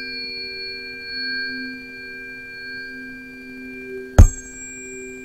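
Pythagorean tuning forks ringing together in a steady chord of several tones, struck again about four seconds in with a sharp click that adds a fresh high tone to the ringing.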